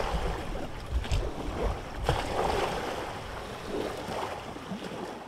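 Steady rushing noise with irregular low rumbles, fading away near the end.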